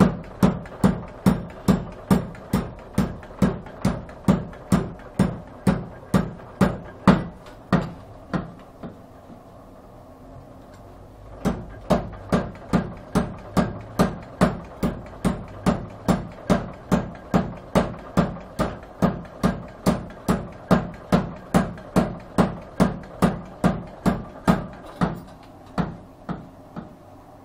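Mechanical power hammer pounding a red-hot billhook blank in a steady run of evenly spaced blows, about two a second, with a pause of a few seconds partway through; near the end the blows slow and stop. The sound is muffled by a finger over the microphone.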